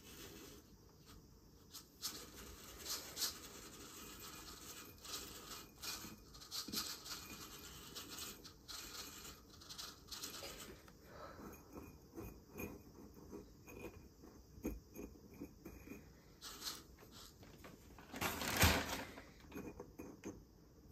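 Small terrarium pebbles clicking and scraping against a glass jar as they are spread over akadama soil with a metal tool and fingers. There is a run of faint ticks and scratches, and a louder burst of scraping near the end.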